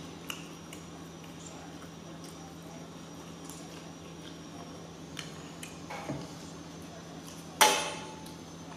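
Forks clinking lightly against plates a few times, with one louder, sharp clink near the end, over a steady low hum.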